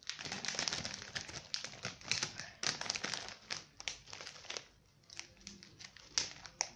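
Plastic chip bag crinkling and crackling as it is tipped up and shaken to pour the last crumbs out. The crackling thins out about five seconds in, then comes back briefly with a few sharp crackles near the end.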